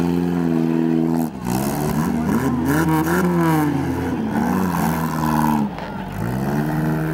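Demolition derby cars' engines revving hard, more than one at a time, their pitch rising and falling as the cars accelerate, with a short drop about a second in.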